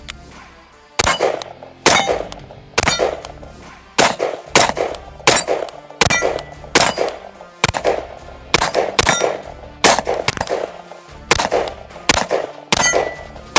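Background music with a string of sharp, ringing clangs, about one every second.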